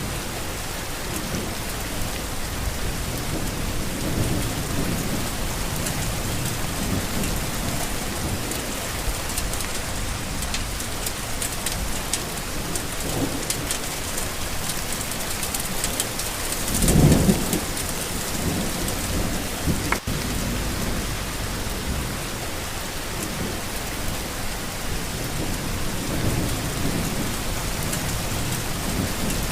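Steady heavy rain with low rolls of thunder rumbling through it, the loudest about seventeen seconds in.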